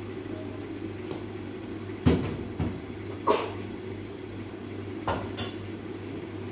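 Kitchen sounds around a lidded pot cooking on a gas stove: a steady low hum, broken by three short sharp knocks or clatters about two, three and five seconds in.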